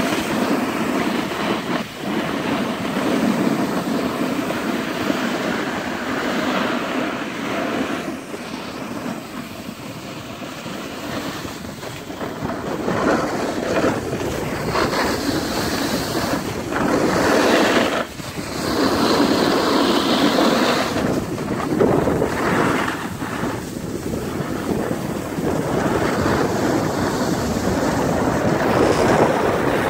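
Wind rushing over the microphone mixed with skis hissing and scraping over groomed snow while moving down the slope, the noise swelling and easing.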